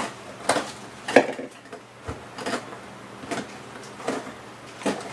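A Labrador puppy rummaging inside an open refrigerator, its muzzle knocking and clattering against food containers on the shelves: a string of irregular sharp knocks, roughly one or two a second, with one duller thud about two seconds in.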